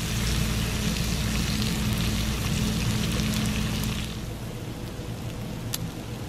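Bacon sizzling and crackling on a flat-top griddle, dying down about four seconds in.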